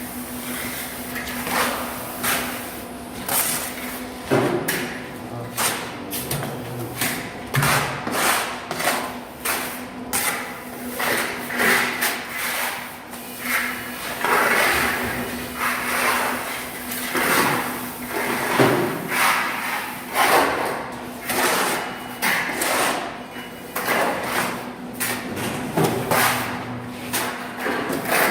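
Steel plastering trowel working wet mortar on a wall: repeated scraping strokes and slaps, several a second and uneven in rhythm, over a faint steady hum.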